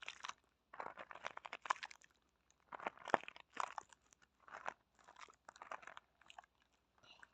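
Close-miked crinkly crunching and crackling, in a series of short bursts with brief pauses between them, as something is squeezed or handled right at the microphone.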